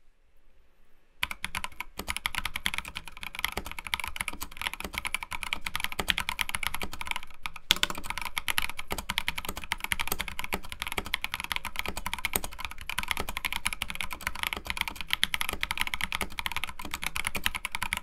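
Stock, unmodded Next Time 75 hotswap keyboard with an aluminium plate, Durock Moss linear switches and PBT keycaps being typed on. The typing starts about a second in and then runs as fast, continuous key clacks.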